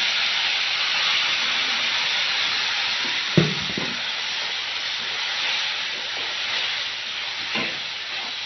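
Ground tomato sizzling in hot oil in a kadai, a steady hiss that slowly eases. A wooden spatula stirs it and scrapes and knocks against the pan, with the loudest knock about three and a half seconds in.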